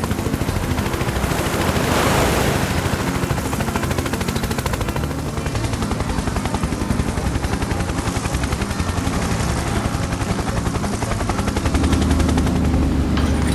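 A loud, rapid, even rattle of pulses over a low hum, like an engine running; the low hum swells near the end.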